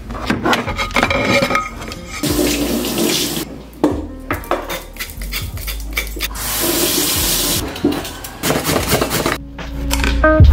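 Kitchen tap running in two short spells, about two seconds in and again past six seconds, amid scattered knocks and clatter of a knife and a glass cutting board as carrots are handled and sliced.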